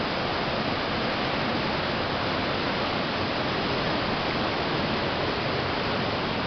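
Steady rush of a river in flood, its high water churning through whitewater rapids.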